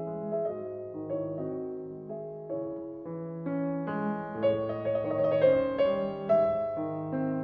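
Background music: gentle piano playing a slow series of chords and melody notes, rising in pitch and busier about four to six seconds in.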